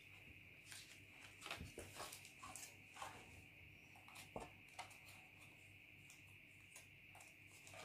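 Scissors snipping through a paper pattern piece: faint, irregular clicks and paper rustles over a faint steady hum.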